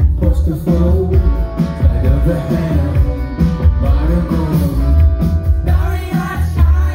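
Live rock band playing: a male lead singer over electric guitar, keyboards and a heavy, pulsing bass and drum beat.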